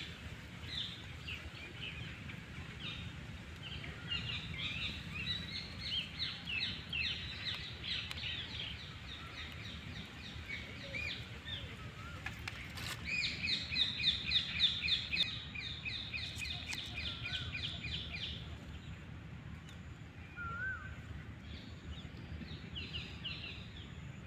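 Birds chirping and calling, with a fast run of evenly repeated high notes lasting about five seconds in the middle, over a steady low outdoor rumble.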